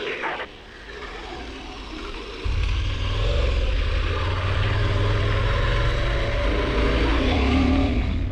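KTM 1190 Adventure R's V-twin running under way, with a heavy low rumble that starts abruptly about two and a half seconds in and stops near the end.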